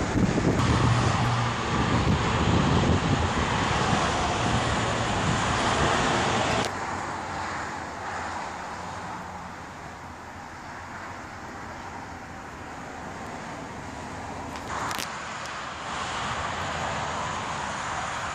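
Steady road traffic noise from cars passing on a highway. The first seven seconds carry a louder, rougher rush with a low hum, which drops off abruptly to a quieter, even wash of traffic.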